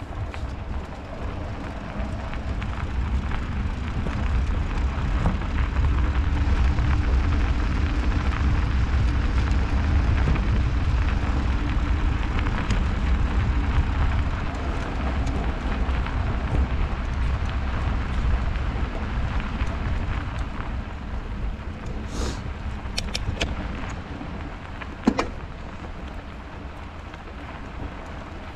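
Bicycle ride noise on a snowy road: wind on the microphone and tyre noise, swelling over several seconds and easing off again. A few sharp clicks near the end.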